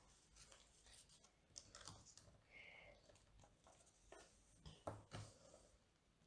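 Near silence with faint, scattered clicks and rustles of small plastic LEGO pieces being handled and pressed together.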